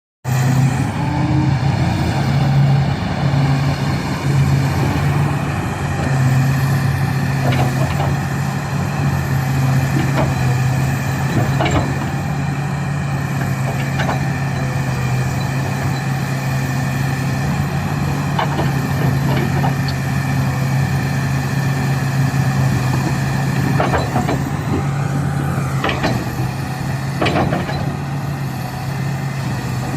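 Komatsu PC360-7 hydraulic excavator's diesel engine running steadily with a deep hum and a high whine above it, worked through swinging and empty digging. Short clanks are heard now and then, most around the later part.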